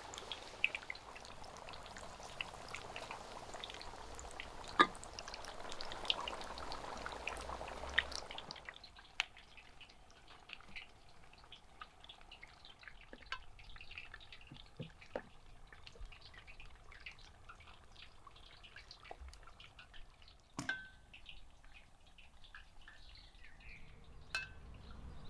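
Chicken deep-frying in hot oil in a cast-iron cauldron: a steady crackling sizzle full of small pops that cuts off after about eight seconds. After that come quieter scattered clicks and light scraping of metal tongs turning chicken pieces in breading in an enamel bowl, with one sharper click a little after 20 seconds.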